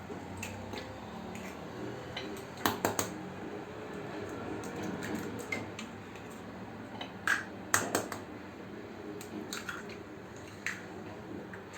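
Kitchen handling sounds as ingredients go into a mixing bowl: a few sharp clicks and knocks, some in quick pairs, with soft rustling between them.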